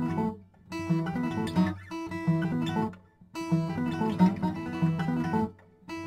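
Background music on acoustic guitar, played in phrases broken by brief pauses.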